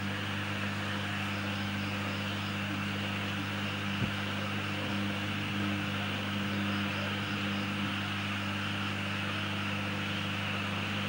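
Steady electrical hum with a hiss above it, unchanging throughout, and one small click about four seconds in.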